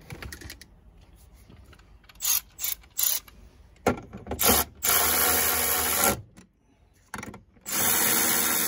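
Cordless electric ratchet running down nuts. It comes in a few short blips, then a run of about a second, then a longer run near the end, with a faint motor whine.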